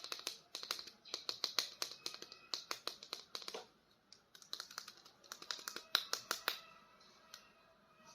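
Hard plastic clicking and tapping from handling an action figure and its packaging, in two quick rapid runs of clicks, then a few scattered clicks near the end.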